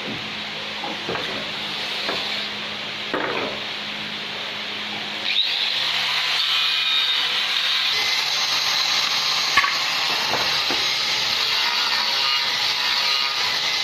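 A power tool working wood, running steadily with a hissing, grinding noise. It grows louder about five seconds in, with a few sharp knocks along the way.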